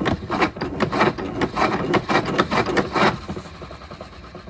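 O-Cedar EasyWring spin mop bucket worked by its foot pedal: a fast run of plastic clicks and rattles as the wringer basket spins, easing off about three seconds in. The drive now grips because duct tape wrapped around the worn, thinned shaft lets the bearing catch it.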